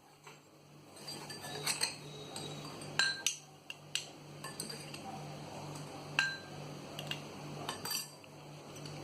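Metal spoon and kitchen utensils clinking irregularly against a bowl, several sharp clinks, some with a brief ring, as ginger paste is worked to draw out its juice.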